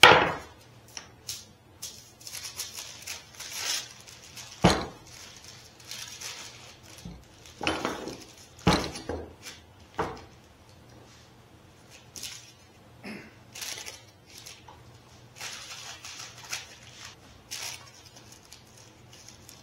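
Workbench handling sounds: a sharp knock as a hammer is set down on the wooden bench top, then scattered knocks, clicks and rustling of paper towels as pipe clamps on a glued-up tabletop are tightened and the glue squeeze-out is wiped off.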